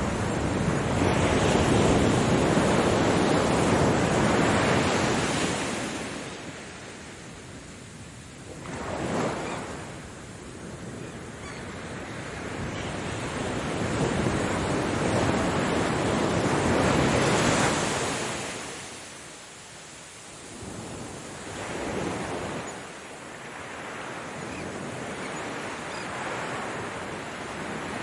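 Sea waves breaking and washing in slow surges: a long loud one at the start, a short one about nine seconds in, another building to a peak past halfway, and smaller ones near the end.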